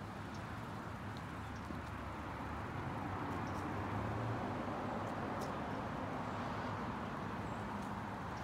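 SUV engine running at low speed while towing a small hut on a trailer across asphalt: a steady low hum with tyre noise, swelling a little midway as it comes closer.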